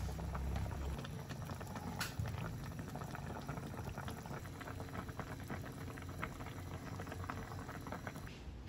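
Fish broth with moringa leaves boiling in a wok, a steady crackle of bubbles, as a plastic ladle stirs the leaves into the liquid. A brief low rumble sounds in the first second.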